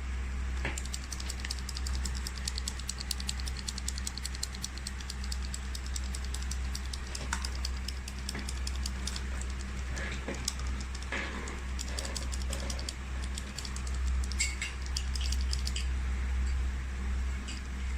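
Mechanical keyboard switches clicking under rapid key presses, in dense runs of clicks over a steady low hum.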